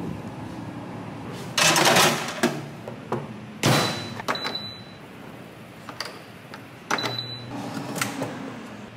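A wire rack and metal loaf pan are slid into a countertop air fryer oven with clatters and knocks, and the door is shut. Two short high beeps sound from the oven as its control dial is set.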